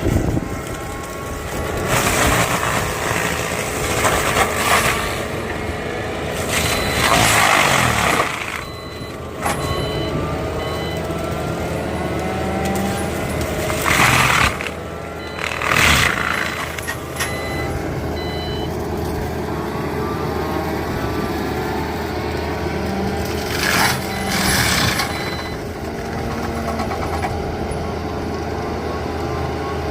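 Sunward skid steer with an NB (Niubo) KBX 180 forestry mulcher head running steadily, with several louder bursts of noise as the mulcher works. A reversing beeper sounds in short beeps in the middle part.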